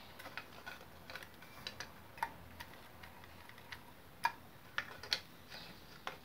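Scattered light clicks and taps of the plastic parts of a dismantled Revlon One-Step hot air brush being handled, irregular, with a few sharper clicks in the second half.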